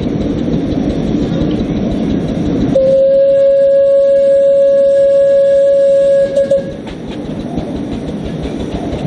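A 10¼-inch gauge 4-4-2 miniature steam locomotive running, with its steam whistle sounding one long steady note for about four seconds from about three seconds in. The note breaks up briefly as it shuts off, and the low running noise of the train goes on after it.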